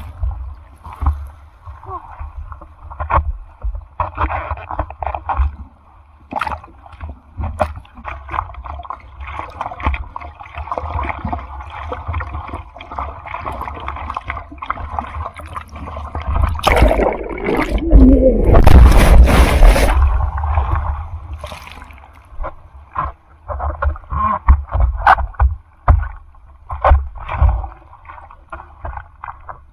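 Typhoon surf: sea water sloshing and splashing close to the microphone, with a low rumble of wind on the mic. About 17 seconds in, a breaking wave rushes in loudly for about four seconds, then the choppy splashing goes on.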